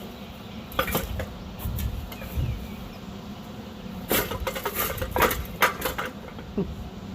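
Hand tools and metal parts clinking and knocking: a couple of sharp knocks about a second in, then a run of quick metallic clinks and clatters from about four to six seconds in.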